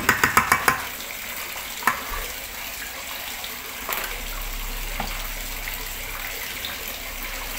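A quick run of light taps in the first second, then a steady faint hiss with a few soft knocks as a rubber spatula starts folding sponge-cake batter in a stainless steel bowl.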